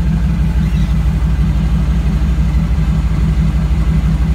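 Seaplane engine and propeller running steadily with an even low pulsing throb, heard from inside the cabin.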